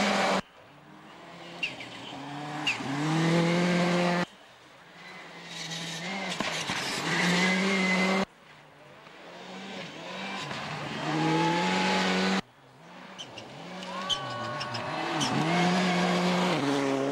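Turbocharged four-cylinder World Rally Cars on a snow stage, each engine approaching under hard acceleration and getting louder, the note stepping through gear changes. Four passes follow one another, each cut off suddenly, with a few sharp cracks.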